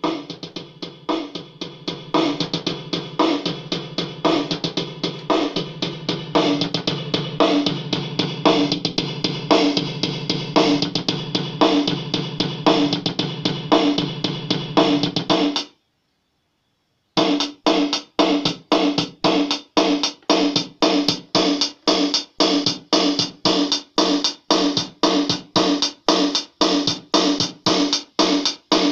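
Yamaha DD-6 electronic drum pad playing a preset drum-kit rhythm pattern. About halfway through, the pattern stops, and after a second and a half of silence a different rhythm pattern starts.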